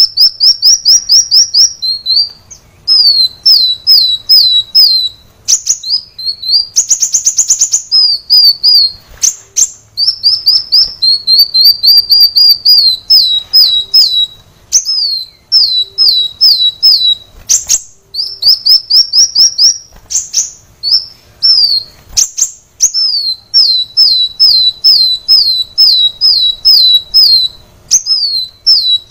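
Kolibri wulung (Van Hasselt's sunbird) singing: a continuous, high, sharp song of rapid falling notes strung together in fast series of about four or five a second, with a short buzzy trill about seven seconds in.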